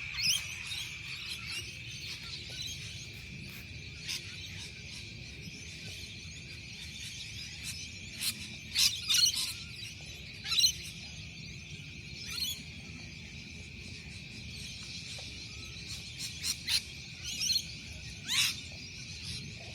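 Steady high-pitched drone of insects such as crickets. Sharp high squeaks or calls break in a few times over it, and one near the end glides down in pitch.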